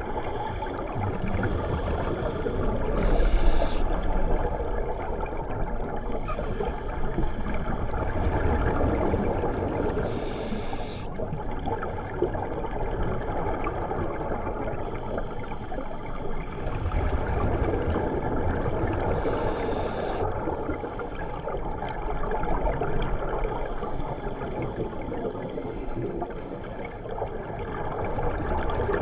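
Muffled underwater noise heard through a diving camera, with a rushing burst of scuba exhalation bubbles three times, about every seven to nine seconds.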